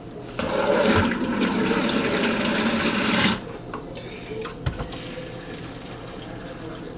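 Water gushing for about three seconds, starting about half a second in and cutting off suddenly, as standing water is taken out of a backed-up kitchen sink; a few faint knocks follow.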